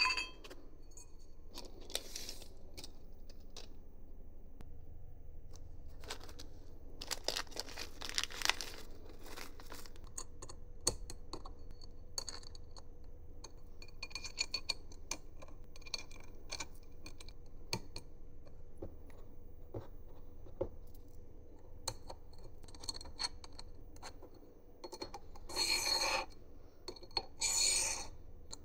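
Hand work on Voron Trident 3D printer kit parts: scattered light clicks and clinks of small hardware being handled, with brief noisy rubbing and scraping passages, the longest near the middle and two about a second each near the end.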